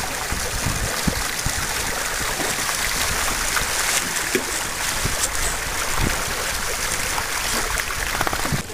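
Water hissing and rushing steadily along the hull of a sailing canoe under way, with an irregular low buffeting of wind on the microphone.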